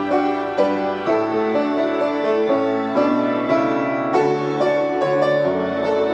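Piano duet playing a hymn tune, with notes and chords struck about twice a second and left to ring.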